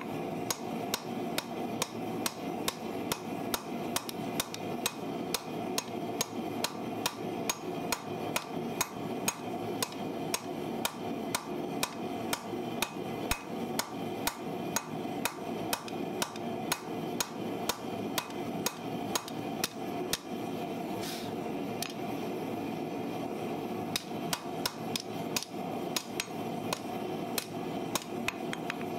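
Hand hammer striking red-hot steel from a farrier's rasp on an anvil, a steady run of about two to three blows a second, with a pause of a few seconds about two-thirds of the way through, then hammering again. A steady hum runs underneath.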